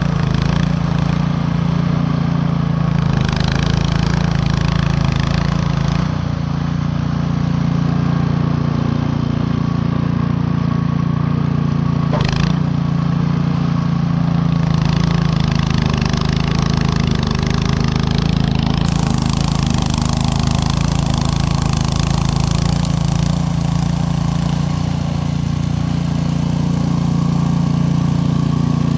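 Cub Cadet two-stage snow blower's engine running steadily under load as it clears snow, with a single short knock about twelve seconds in.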